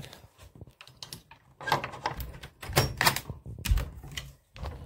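Door being unlocked and opened: a string of clicks, rattles and knocks, the heaviest a deep thump near the end.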